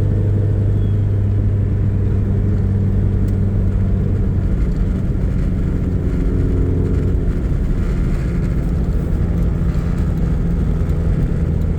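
Engine of a 600 hp, E85-fuelled 1990 Talon running steadily at low speed while the car drives on snow, its note shifting slightly in pitch about halfway through.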